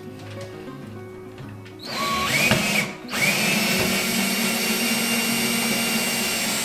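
Power drill driving a light switch's mounting screw: a short run about two seconds in that rises in pitch, a brief stop, then a longer steady run.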